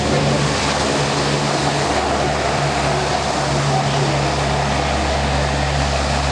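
Four Allison T56 turboprop engines of a C-130H Hercules running loud and steady, a deep drone with broad propeller noise over it, during a maximum-effort short-field landing.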